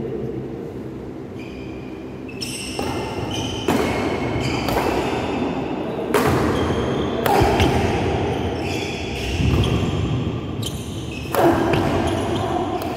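A badminton rally in an echoing hall: sharp racket strikes on the shuttlecock come one to two seconds apart, with a pause of about three seconds past the middle.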